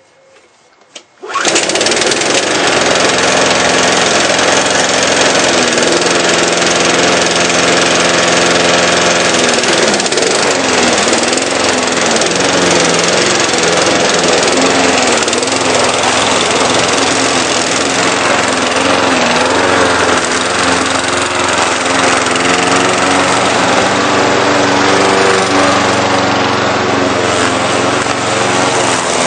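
Honda-engined petrol rotary lawn mower cold-started with a pull of the starter cord, catching about a second in, then running steadily and loudly as it cuts long grass, its engine note wavering a little under the load.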